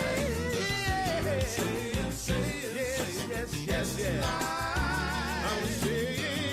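Recorded song playing: a singer's voice with vibrato over a steady bass line and drums.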